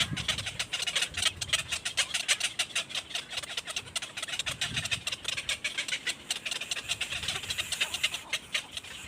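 Small birds chirping in a fast, dense run of short, high-pitched chirps, many a second.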